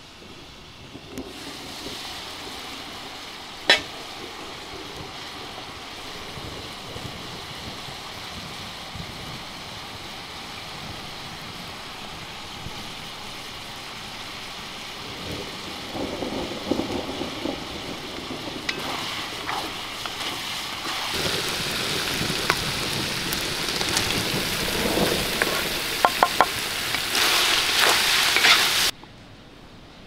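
Food frying in a cast-iron cauldron over a wood fire, with a steady sizzle that gets louder partway through. There is a sharp click about four seconds in and a few sharp clicks near the end, and the sizzle cuts off abruptly just before the end.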